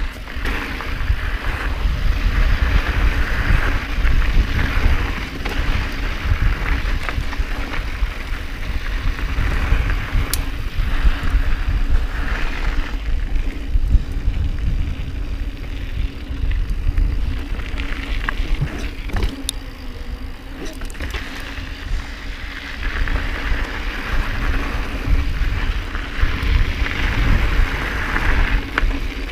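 Mountain bike rolling along a dirt singletrack, heard from a camera mounted on the handlebars: wind rumbling on the microphone over tyre noise on the dirt, with a few sharp clicks and rattles from the bike.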